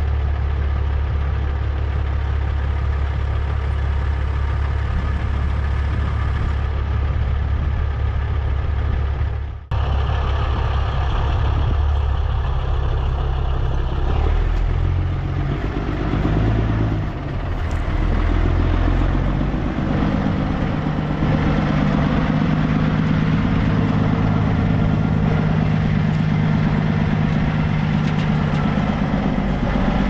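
Semi truck's diesel engine idling, then running at higher revs in the second half as the truck pulls away across the field.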